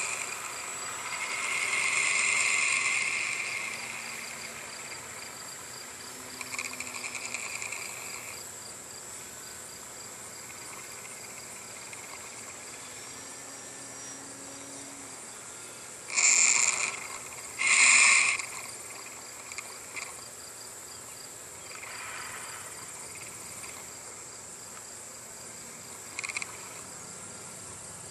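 Crickets and other insects chirring steadily, with a faint run of evenly repeating chirps and a high, steady whine. A little past halfway come two short, loud rushing bursts about a second and a half apart.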